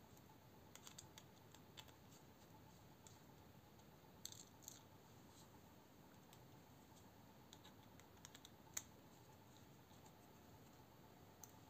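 Near silence broken by scattered faint small clicks and taps of a folding knife's metal parts and a bit driver being handled during disassembly, with the sharpest click a little before the last quarter.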